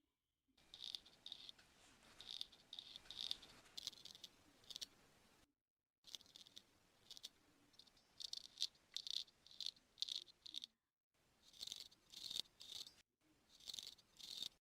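Quiet, close-up scratching and rustling of a grooming tool working in and around an ear canal: quick clusters of short, crisp scrapes, cut off abruptly to silence a few times.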